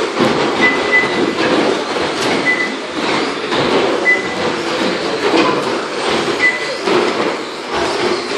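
Electric 1:10 RC short course trucks racing on an indoor track: a continuous clatter of motors, tyres and suspension echoing in the hall, with a short high beep every second or two and occasional knocks.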